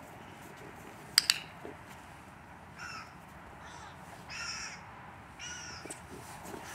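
A crow cawing several times, about a second apart. About a second in comes a sharp double click, the loudest sound: the press and release of a dog-training clicker.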